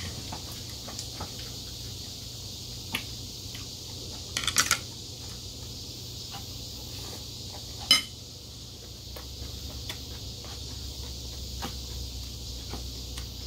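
Metal spoon clinking and scraping against a ceramic bowl during eating: scattered small clicks, a short quick cluster about four and a half seconds in, and one sharp clink near eight seconds, over a steady high hiss.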